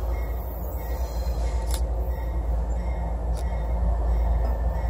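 Steady low rumble of an approaching CSX freight train led by GE ES40DC diesel-electric locomotives, with two faint clicks about a second and a half apart.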